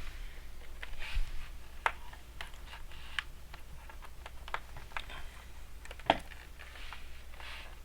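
Small, irregular clicks and taps from hands working on a laptop's screen assembly and its parts, with a few brief scraping rustles. The sharpest click comes about six seconds in.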